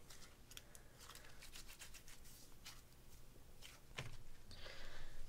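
Faint clicks and soft squishes of slime being handled and pressed in the hands, with a louder click about four seconds in.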